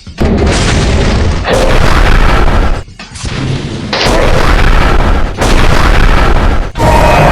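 Loud explosion and gunfire sound effects: a string of about six heavy blasts, each cutting in abruptly and running on loudly until the next.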